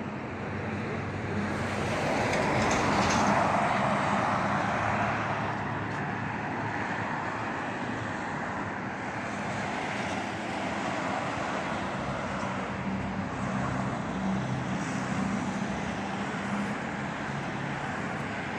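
A motor running steadily with a noisy hiss, louder about two to five seconds in.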